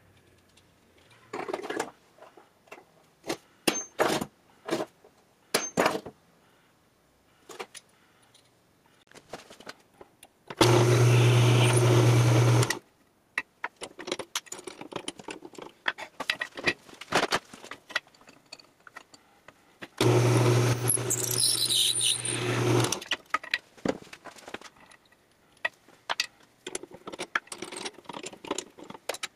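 Metal pipe fittings and tools handled at a drill press: scattered clicks and clanks. These are broken twice by about two seconds of a loud machine running with a low hum, about ten seconds in and again at about twenty seconds.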